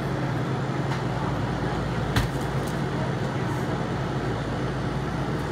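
Steady low machine hum over a haze of background noise, with one light click about two seconds in.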